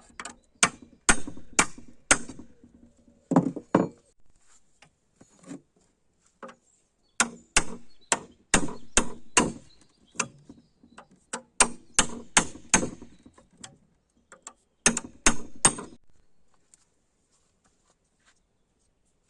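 Hammer blows on metal in several quick runs, about two to three strikes a second, each with a short ring. The blows stop a few seconds before the end.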